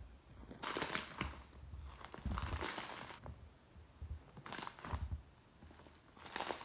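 Iceberg slime being pressed by hand, its dried crust crackling and crunching in bursts: a long one about half a second in lasting over two seconds, a short one around four and a half seconds, and another near the end, with soft low thuds of the pressing under them.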